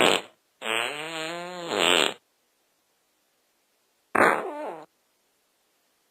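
Three fart sounds with silence between them. A short one comes first, then a long wavering one of about a second and a half, and about four seconds in a shorter one that falls in pitch.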